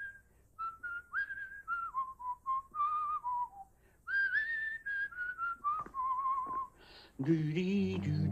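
A man whistling a short, wandering tune in separate notes, some gliding up or down. Music comes in near the end.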